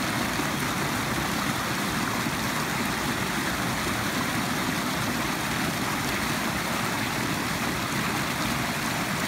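Floodwater swollen by rain pouring over a low overflow weir and churning around the trap: a steady, unbroken rush of water.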